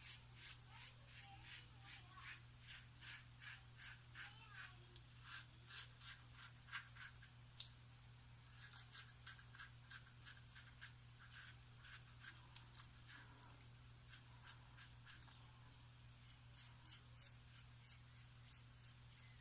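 Faint, rhythmic scratchy strokes on a lathered face, about two to three a second with a short lull partway through, from cleanup and buffing passes in a wet shave.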